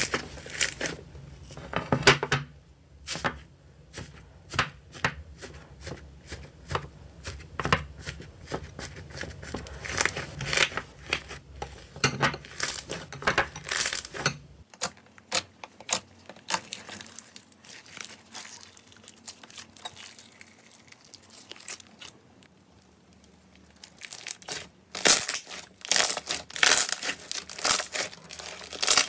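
Slime squeezed and kneaded by hand, including iceberg slime with a dried crust, crackling and popping in quick irregular snaps. There is a quieter lull about three-quarters of the way through before the crackling picks up again.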